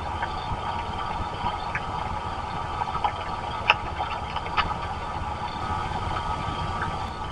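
Steady rain on an outdoor wildlife camera, a constant hiss over a low rumble, with a few sharp ticks of drops striking the camera housing, the loudest about halfway through.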